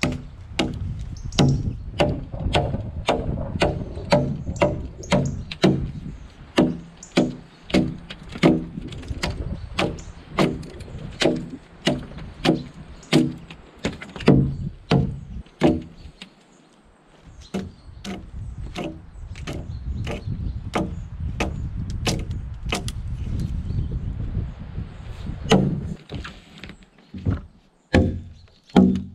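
Axe blows hewing a flat face along a log, a steady chopping at about two strikes a second. The blows stop briefly about halfway; for a few seconds after that a steady low rumble sits under fainter strikes, and loud blows return near the end.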